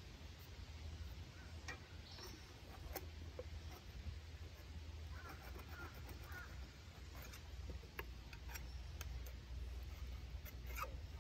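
Scattered light clicks and taps of a flat metal scraper being handled on a tractor engine's cylinder block, over a low steady rumble. A bird calls briefly in the background about halfway through.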